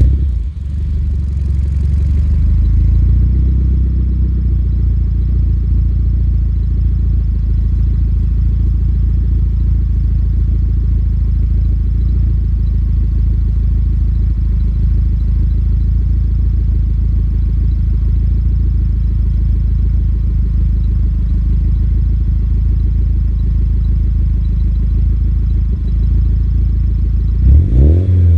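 Nissan Silvia S15 Spec R's SR20DET turbo four-cylinder idling through a GP Sports EXAS EVO Tune aftermarket muffler with its inner silencer removed. The idle is a little higher for the first few seconds after start-up, then runs steady. Near the end the revs rise.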